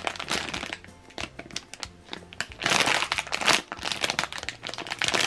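Clear plastic packaging bag of a squishy toy crinkling as it is handled in the hands, in irregular crackles that are loudest about two and a half to three and a half seconds in.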